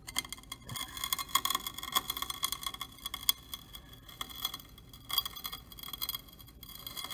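A grinding wheel turning against a crush-dressing form, its abrasive grains being crushed to cut the profile into the rim: a dense gritty crackling and crunching, with brief breaks about half a second in and around five and six and a half seconds.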